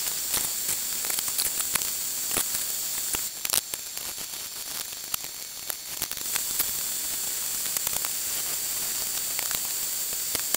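Steady high hiss with scattered light clicks and taps. The hiss drops away for about three seconds in the middle, then returns.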